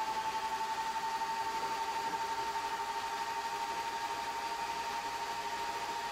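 Cooling fans of an HP server power supply running with a steady whine that creeps slowly up in pitch as they speed up, because a heat gun is warming the heat-sink temperature sensor that sets the fan speed. The heat gun's blower runs along with them.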